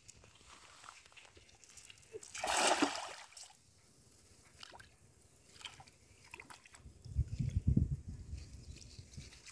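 Cast net hitting the pond surface with a short splash about two and a half seconds in. Bursts of low rumble come near the end.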